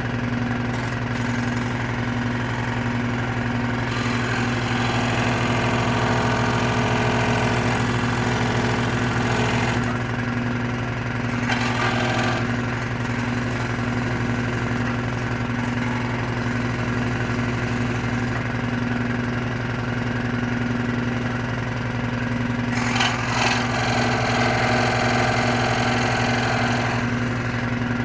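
A power tool running with a steady hum, cutting into a piece of HDPE plastic in stretches of harsher noise: a long one about four seconds in, a short one near the middle, and another near the end.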